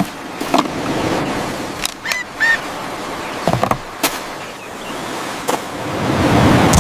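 Steady rushing surf noise with scattered sharp clicks and knocks, and two short high chirps a little after two seconds in.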